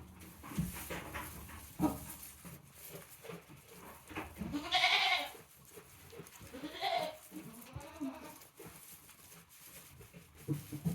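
Goat bleating: one loud bleat about five seconds in and a shorter one near seven seconds, with a fainter wavering call after it. Short knocks and rustles sound in between.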